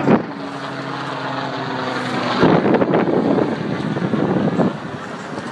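Helicopter flying overhead: a steady engine and rotor drone, joined about two and a half seconds in by a louder, rougher rushing noise.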